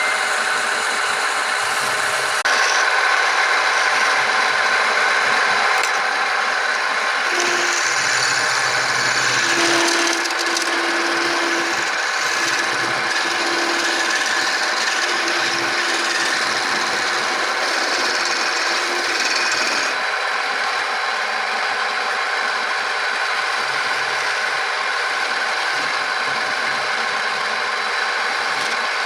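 Wood lathe running while the spinning wooden workpiece is worked, a steady rasping of tool or abrasive on wood that changes in character a few times as the work shifts.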